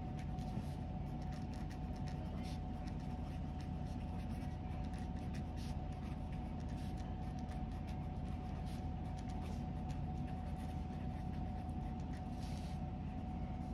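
Pen writing on paper: faint, scattered scratching strokes over a steady background hum that carries a thin constant tone.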